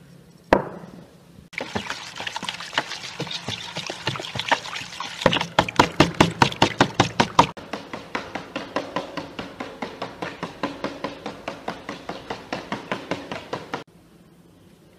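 Egg batter with water and spices being whisked by hand in a bowl: quick, even beating strokes, about four or five a second, loudest for a couple of seconds in the middle and stopping suddenly near the end. A single sharp knock comes just before the whisking starts.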